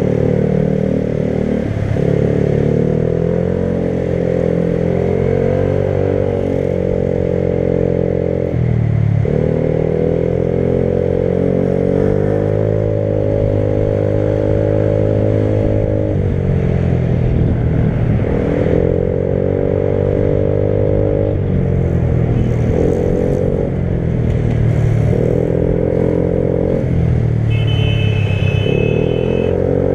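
Motorcycle engine running under way, its note rising and falling with several brief breaks as the rider shifts gears.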